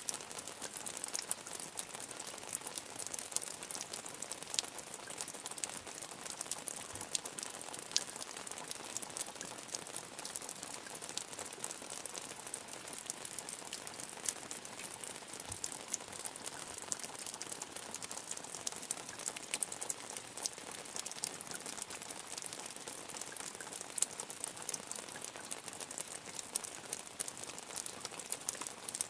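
Medium rain falling steadily, a dense patter of many small drops with sharper ticks throughout.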